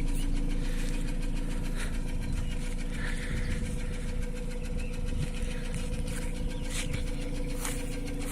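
Nissan Almera N16's engine idling steadily with a fast, even ticking from the valvetrain: valve tapping.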